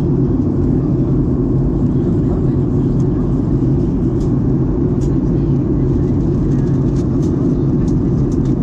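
Steady cabin drone of a Boeing 737-800 in flight, the engines and airflow heard from inside the cabin as the aircraft descends for landing. A few faint light clicks come through in the second half.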